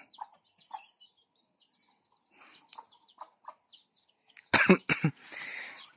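Small birds chirping in quick, high, short calls. Near the end come a couple of sharp clicks and a brief cough.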